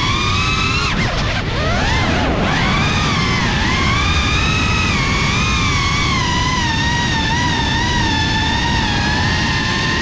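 FPV quadcopter's brushless motors and propellers whining as heard from the drone's own camera, the pitch wavering with the throttle. About a second in the whine drops sharply and climbs back within a second or so, over a steady rush of wind and prop wash.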